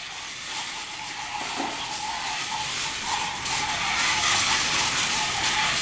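GRRRUMBALL remote-control toy vehicles driving, their small electric motors and plastic gearboxes whirring with a faint steady whine, growing louder.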